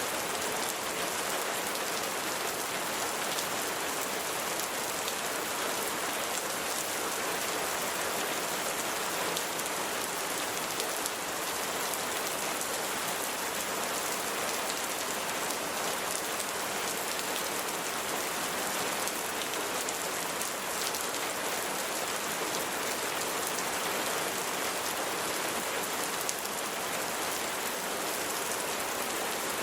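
Steady rainfall, a dense patter of raindrops hitting the ground, unchanging in strength.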